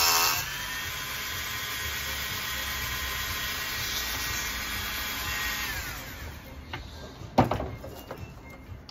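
Handheld rotary tool cutting into a coconut shell for a moment, then running free with a steady whine that falls in pitch and fades about six seconds in as the tool winds down. A single sharp knock about seven and a half seconds in.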